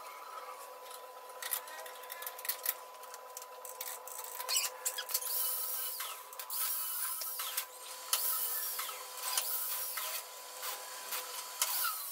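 A spanner clinking, knocking and scraping against the steel front axle and steering linkage of a tractor, in many short irregular strokes, over a faint steady high tone.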